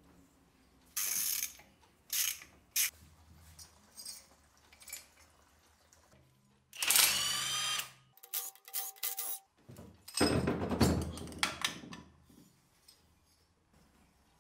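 Cordless power driver with a socket running the cylinder head bolts on an aluminium engine block in several short trigger pulls. The longest run, about seven seconds in, spins up with a rising whine, and another comes about ten seconds in.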